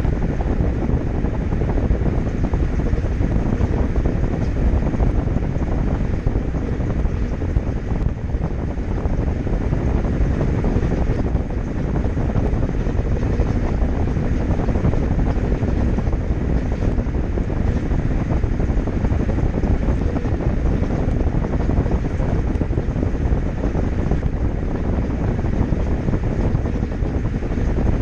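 Samsung top-load washing machine on its spin cycle: the drum spinning with a steady low rumble.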